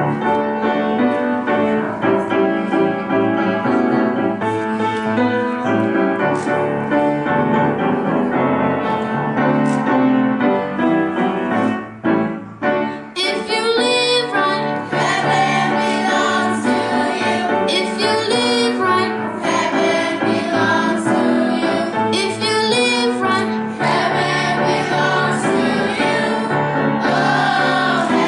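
Piano playing alone, then a youth choir comes in about halfway through, singing with the piano accompanying.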